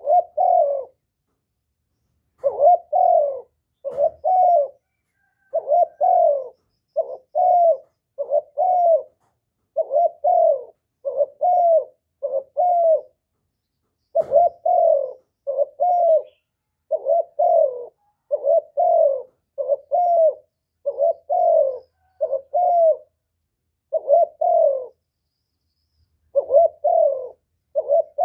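Spotted dove cooing: a steady run of short two- and three-note coos, each note dipping in pitch, repeated about once every second or so with a few brief pauses.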